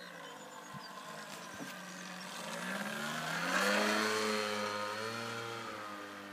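Radio-controlled model plane's motor droning as the plane flies past. It grows louder and rises in pitch to a peak about three and a half seconds in, then fades a little.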